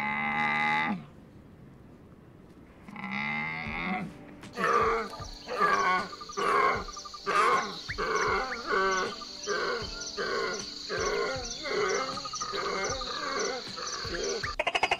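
A camel's pitched call about a second long, then a second one about three seconds in. From about four and a half seconds a long run of repeated animal calls follows, roughly two a second, over a steady high whine.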